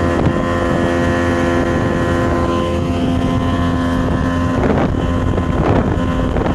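Freshly rebuilt 1994 Mercury 60 hp three-cylinder two-stroke outboard running steadily at speed, its pitch holding even. A few short whooshes come over it about five seconds in.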